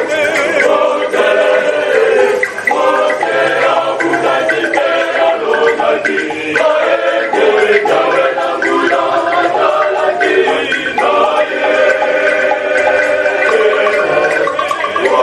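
A large choir singing together, many voices holding chords and moving from note to note without a break.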